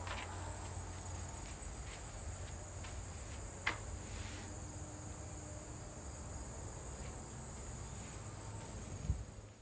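A steady, high-pitched chorus of insects chirring from the lawn outside, with a few soft knocks, the clearest a little under four seconds in.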